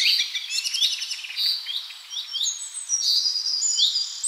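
Birds chirping: a forest-ambience bed of many short, high chirps and quick falling whistles over a faint hiss.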